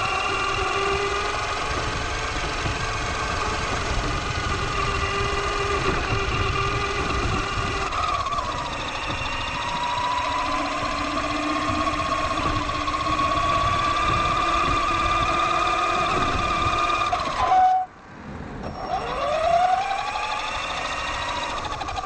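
Axial Yeti XL RC truck's brushless motor and gears whining as it drives, picked up by the camera mounted on the truck, over a low rumble of tyres on pavement. The whine holds fairly steady with small shifts, cuts out briefly near the end, then rises again as the truck speeds back up.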